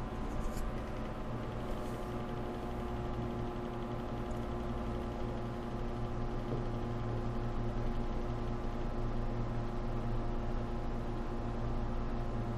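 Desktop computer running just after power-on: a steady whir and hum of its cooling fans and spinning hard drive, while it has not yet reached the POST screen.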